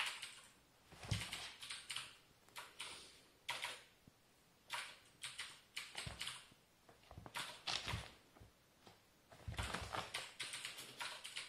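Kitten's claws scrabbling and scratching at a fabric rug and the wooden floor in irregular flurries, with a few soft thumps as it tumbles and the rug shifts.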